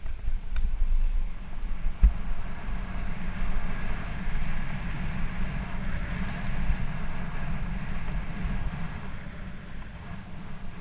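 Wind buffeting a bike-mounted camera's microphone, mixed with tyre rumble and rattle as a mountain bike rolls fast downhill over open-cell concrete paver blocks. There is a single sharp knock about two seconds in, and the rumble eases a little near the end, where the surface turns to smooth asphalt.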